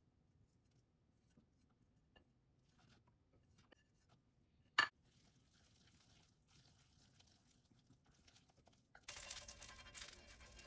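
Faint clicks and soft scraping as vegetables and batter are stirred in a stainless steel bowl, with one sharp click about halfway. About nine seconds in, a steady sizzling hiss begins as oil is spread over a hot cast-iron griddle.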